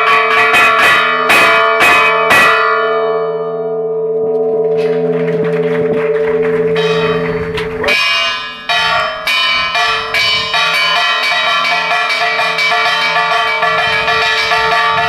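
Church tower bells rung by hand, their clappers pulled on ropes in a fast festive peal (toque de fiesta). The strokes stop about two and a half seconds in and the bells hum as they die away over a stretch of hissing noise, then fast ringing starts again about eight seconds in.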